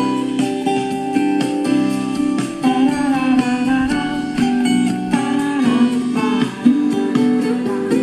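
Thai pop song playing from a CD on an Aiwa CDS-A190 portable stereo: an instrumental passage led by strummed and plucked acoustic guitar, between sung lines.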